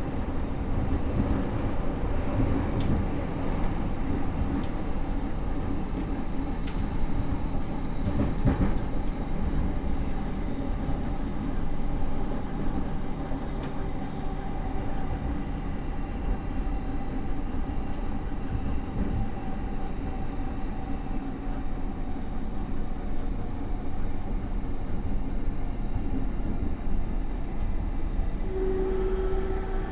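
JR E231-series electric train heard from inside a motor car while running between stations: wheels clicking over rail joints and a steady running rumble, with the hum of traction motors on a Mitsubishi IGBT VVVF inverter, loud and slightly abnormal-sounding. Near the end a new inverter tone starts and steps up in pitch.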